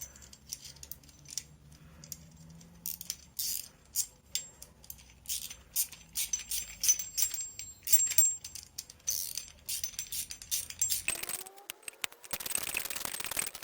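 Small metal hardware (bolt, nut and washers) being handled and fitted, with irregular clicks and light metallic clinks and rings. Near the end there is a short rising squeak, then about a second of rasping noise.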